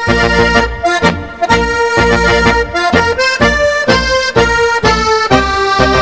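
Instrumental passage of a Tyrolean folk march, led by a button accordion over a small folk band with a steady bass beat of about two pulses a second.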